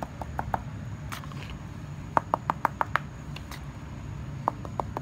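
Runs of light, quick clicks, about six a second, coming in three short bursts: a stir stick knocking against the sides of a plastic mixing cup of epoxy resin while stirring and scooping it.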